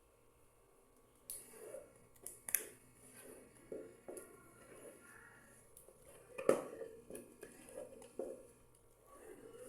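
Soft, sticky, unkneaded bread dough being stirred and scraped in a bowl, with irregular squishy sounds and a few sharp knocks, the loudest about six and a half seconds in.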